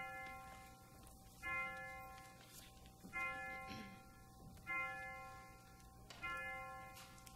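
A chime bell tolling a single note, struck about once every one and a half seconds, each stroke ringing and fading before the next.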